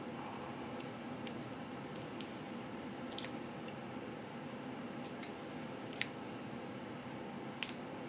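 Small knife peeling the shell off a chestnut: a handful of short, sharp cracks and scrapes of the shell, spaced irregularly, over a steady low background hiss.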